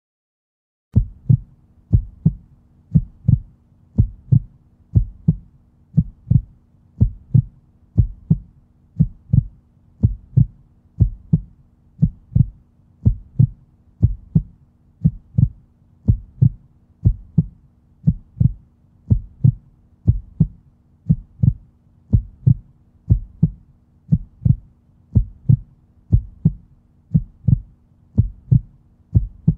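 Heartbeat sound effect: low paired thumps, lub-dub, about one pair a second, over a faint steady low hum.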